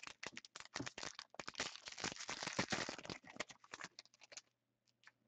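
Crinkling, rustling and crackling of trading-card packaging being torn open and handled, full of small clicks. It thins to scattered clicks about three seconds in and stops shortly before the end.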